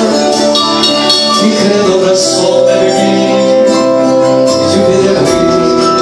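Live Andean-style band music through a PA system: a man singing held notes over amplified instruments, with jingling percussion keeping the beat.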